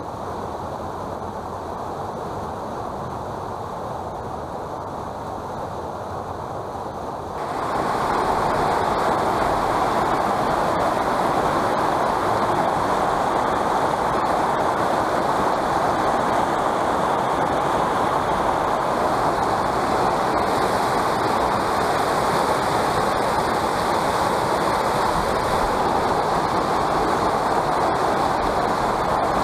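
Rushing water of a small rocky river running over riffles and rapids, a steady continuous noise. About seven seconds in it jumps suddenly louder and stays so.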